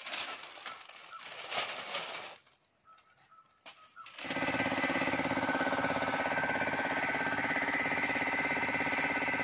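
Newspaper rustling and tearing as sheets are torn and pressed on, then after a short lull a piston air compressor comes in suddenly, about four seconds in, running steadily with an even pulsing beat, feeding a paint spray gun.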